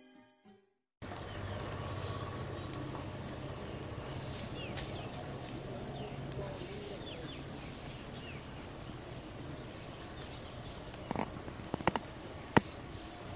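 Garden ambience: a steady high insect drone with short chirps about once a second and a few falling bird chirps. Near the end come several sharp snaps and rustles as a banana leaf is grabbed and pulled.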